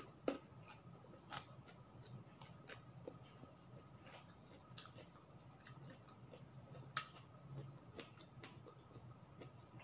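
Faint, crunchy chewing of boiled choy sum stalks: a scatter of crisp clicks a second or so apart.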